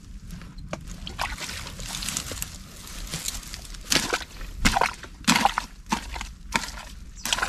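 Sloshing and splashing of shallow muddy water as a person wades and works in it, in irregular strokes that grow louder from about four seconds in.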